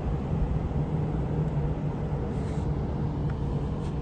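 Steady hum of a cruise ship's machinery over a low, uneven rumble.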